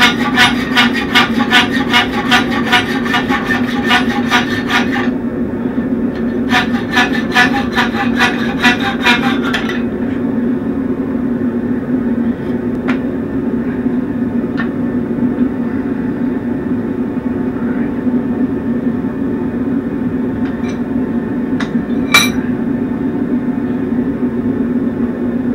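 Hacksaw cutting through a steel horseshoe held in a vise, in fast, even rasping strokes, with a short pause about five seconds in, and stopping about ten seconds in. After that a steady low hum carries on, with a few light metallic clicks, the sharpest a little after twenty seconds.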